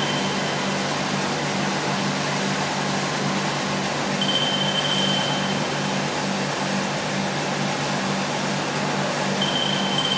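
Gray CNC vertical boring mill running: a steady mechanical whir with a low, pulsing hum. A short, high, fading tone comes about every five seconds.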